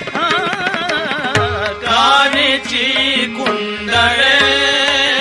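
Marathi devotional gavlan performance: a male voice draws out a wavering, ornamented note in the first second or so, then a held instrumental melody continues over tabla strokes.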